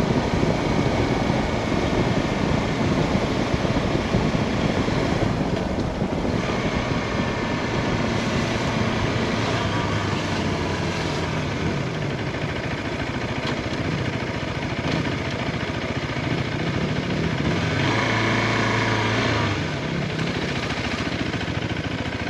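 Steady road and engine noise inside a moving car, with the engine note rising and falling briefly near the end.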